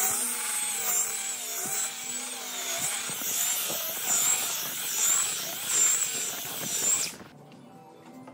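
Power tool running with a wavering whine, cutting wood, that cuts off suddenly about seven seconds in.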